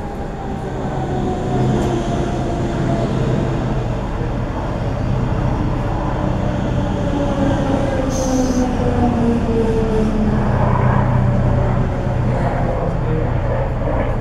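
Berlin S-Bahn electric train arriving on the neighbouring track. It rumbles past as it slows, its motors whining in tones that fall slowly in pitch as it brakes, with a brief high squeal about eight seconds in.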